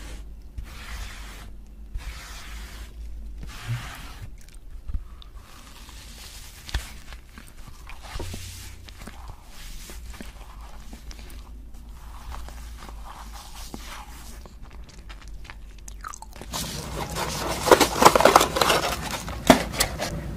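Close-miked eating sounds of marshmallow rolls being bitten and chewed, a series of short squishy mouth sounds and clicks. About sixteen seconds in, louder dense crackling and rustling as a cardboard-and-paper candy box is handled and opened.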